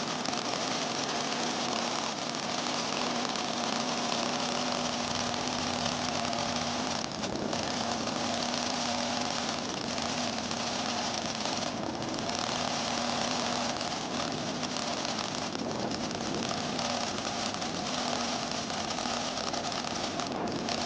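Paint spray gun hissing steadily with compressed air, over a low steady hum, the hiss dipping briefly a few times as the trigger is eased.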